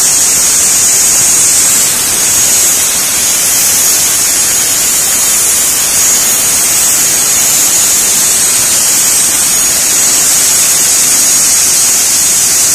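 Plasma torch of an Ajan CNC gantry cutting machine cutting steel plate: a loud, steady high-pitched hiss.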